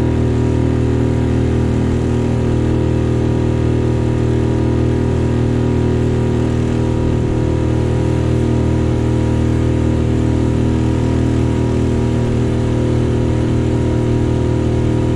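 A small motorboat's engine running steadily at cruising speed, a constant drone that does not change in pitch.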